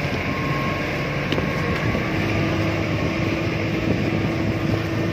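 Engine of a motorized outrigger boat running steadily under way, a continuous low hum with rushing wind and water noise over it.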